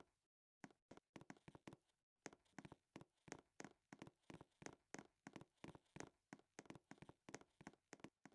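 A series of faint, quick taps or clicks, sparse at first, then about three a second.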